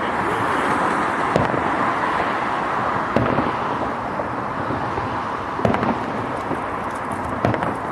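Fireworks salute going off at a distance: four sharp bangs of shells bursting, about two seconds apart, over a steady hiss.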